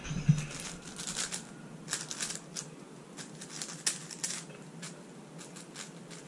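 A 5x5 speed cube being turned fast by hand in a speedsolve: an irregular, rapid run of plastic clicks and clacks as its layers turn.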